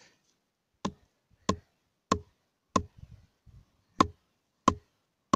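A cattle tether stake being pounded into very hard ground: seven sharp, evenly spaced knocks, about one every two-thirds of a second, with a short break and a few lighter taps in the middle.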